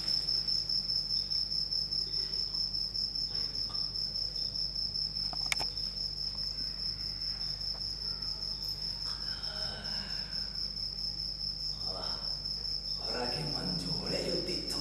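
Insect chirping in one steady high pitch with a fast pulsing rhythm, the sound of a cricket on a night scene; a single sharp click about five and a half seconds in.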